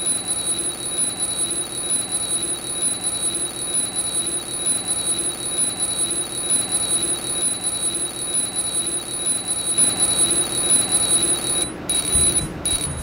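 Mechanical bell alarm clock ringing continuously with a fast, rattling clang. Near the end the ringing stutters and cuts off.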